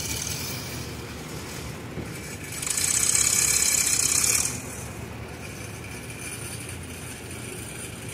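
Farmall tractor engine running steadily as the tractor climbs onto a tilting balance-beam platform. About two and a half seconds in, a loud hiss joins it for nearly two seconds.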